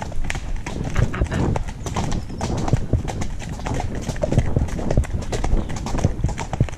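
Horse hooves clip-clopping on a dirt woodland track, heard from the saddle of the ridden horse, in a steady run of hoofbeats.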